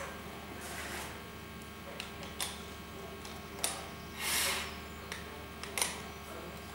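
A few light clicks and knocks of tools being handled, and a short rustle about four seconds in, over a steady low hum.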